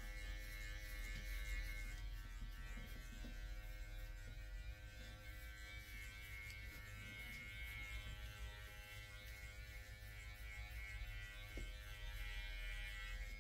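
Corded electric hair clipper buzzing steadily as it cuts a man's short hair down close to the scalp.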